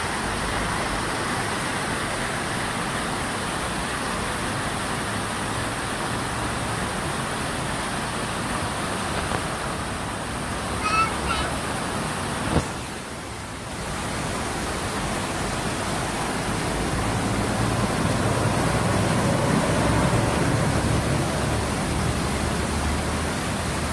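Steady outdoor rushing noise by a road, with the low rumble of road traffic growing louder in the second half. A sharp knock about halfway.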